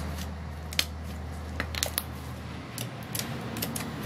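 Stiff slime mixed with polystyrene foam beads being kneaded by hand, giving off irregular small clicks and pops.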